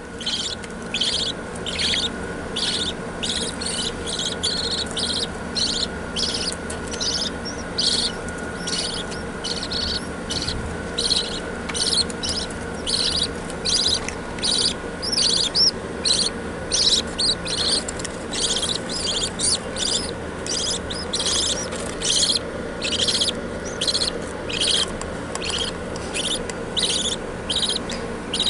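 A group of budgerigars chirping and chattering without pause, a quick, uneven run of short high calls, over a steady low hum.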